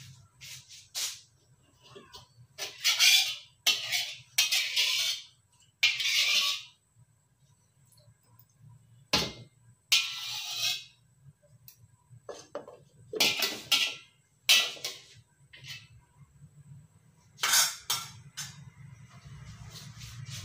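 Metal spatula scraping around an iron wok in short strokes, spreading the cooking oil as the wok heats. A steady low hum runs beneath.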